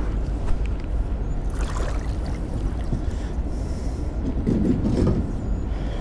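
Steady low rumble of handling noise, with fabric rubbing over a body-worn camera's microphone as the wearer leans and moves, plus scattered small knocks and a louder scuffle about four and a half seconds in.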